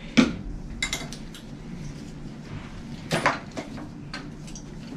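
Metal clinks and clicks from a dog's harness and leash buckles being undone and taken off, with a few separate sharp clinks and knocks.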